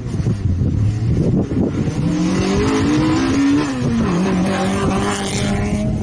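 Rally car engine revving hard under acceleration, its pitch climbing for a couple of seconds, dropping sharply about four seconds in, then holding steady.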